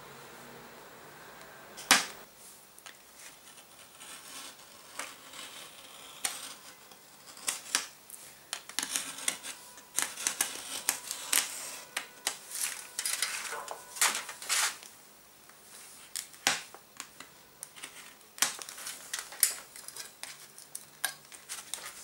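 Embossing stylus pressing and scraping on a thin sheet of gold embossing foil, making irregular sharp clicks and short scratches, with one sharp click about two seconds in.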